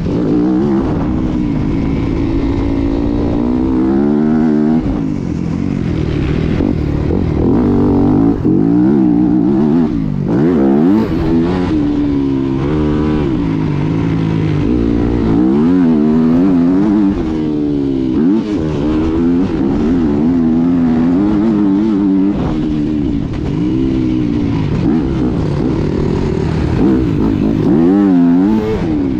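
Yamaha 250 motocross bike engine under hard riding, revving up and down over and over as the throttle is worked and the gears change. The pitch climbs and drops every second or two.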